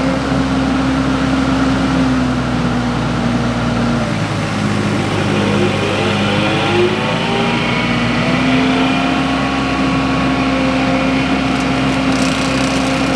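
Mini skid steer's engine running the hydraulic forestry mulcher steadily. About four seconds in the engine note dips, then climbs back over the next few seconds.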